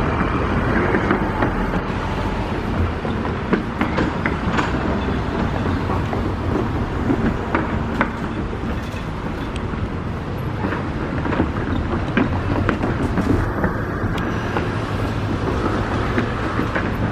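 Electric commuter trains pulling slowly into a station: a steady rumble of wheels on rail with scattered sharp clicks over the track.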